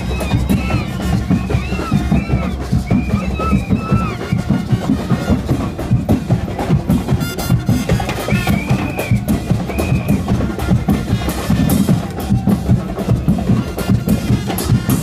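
Loud Caribbean carnival music driven by heavy drumming and bass drum, with a high melody line of short rising-and-falling notes over the first few seconds and again about eight seconds in.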